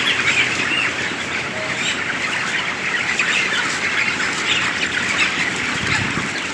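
A large flock of chickens in a poultry shed, a steady dense chatter of many overlapping chirps and clucks.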